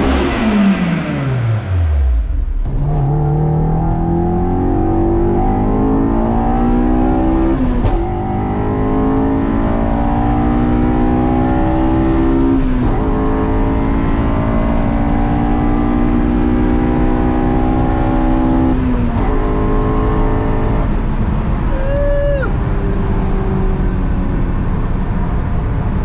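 Honda S2000 four-cylinder engine with a Berk high-flow catalytic converter, its pitch falling back after a rev at the tailpipe for the first two seconds. It is then heard from inside the cabin accelerating hard, the pitch climbing in each gear and dropping at the upshifts about 8, 13 and 19 seconds in, and running steadier near the end.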